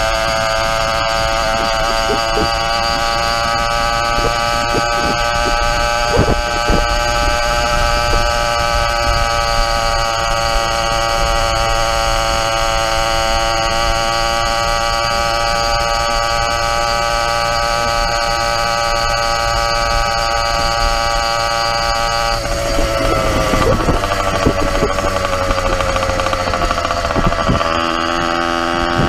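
YD100 motorized bicycle engine running at a steady cruising speed, with wind noise underneath. About three-quarters of the way in the engine note drops as the throttle eases off, and near the end it climbs again as the rider opens it back up.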